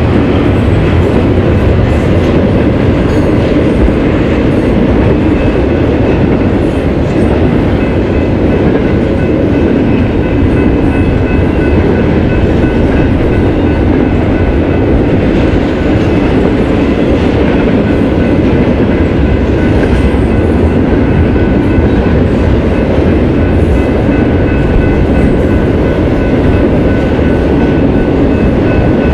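A BNSF freight train's double-stack intermodal container cars, then autorack cars, rolling steadily past at a grade crossing: a loud, even wheel-on-rail noise, with faint steady high tones above it.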